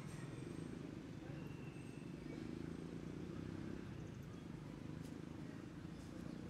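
Faint outdoor background: a steady low rumble, with a few soft clicks and faint thin high chirps.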